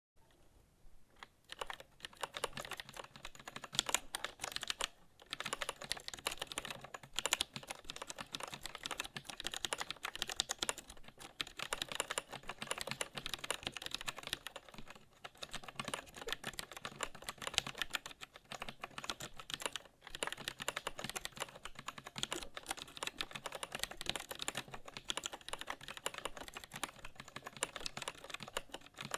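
Continuous fast typing on a Kinesis Advantage ergonomic keyboard with Cherry MX Brown tactile switches: a dense stream of key clicks and clacks, starting about a second in, with brief pauses now and then.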